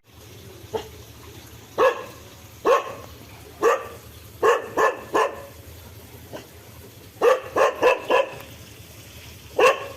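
A dog barking in short, sharp barks: single barks about a second apart, then a quick run of five barks about seven seconds in, and one more near the end.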